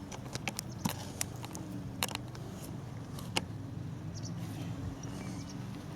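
Scattered light clicks and scuffs of someone working by hand in garden soil, over a steady low hum.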